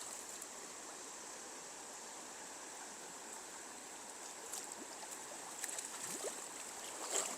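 River current rushing steadily, with a few faint ticks near the end.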